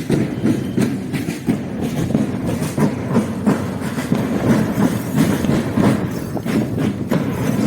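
Marching drum band playing a steady, loud drum cadence of rhythmic beats.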